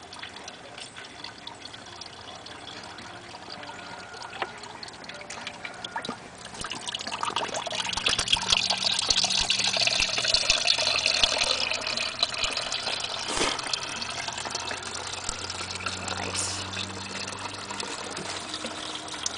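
Fresh crab apple juice running from the bottom spout of a homemade cider press into a bucket: a trickle that swells into a steady pour about seven seconds in and eases off again after a few seconds. Scattered light clicks run through it.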